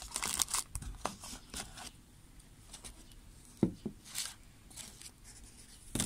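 A cardboard box being rustled and scraped as a plastic washing-machine drain pump is taken out of it, with a couple of sharp knocks a little past halfway.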